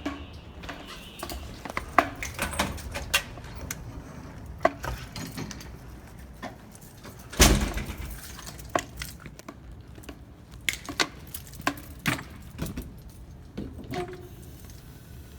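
Scattered light clicks and knocks over a low steady rumble, with one loud thump about seven and a half seconds in.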